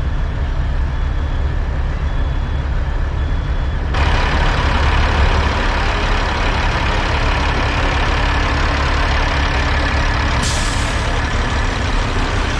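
Semi-truck diesel engines idling with a steady low rumble. At first it is heard from inside the sleeper cab with a faint beep repeating about once a second; then it is heard out among the trucks. About ten seconds in, a short burst of air hiss from a truck's air brakes.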